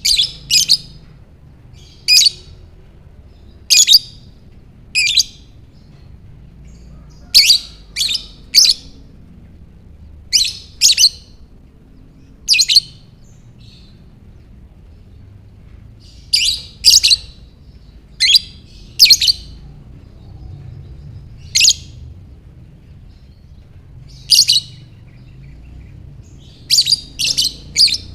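Lovebird making sharp, high-pitched chirps, one at a time or in quick runs of two or three, with pauses of one to three seconds between them.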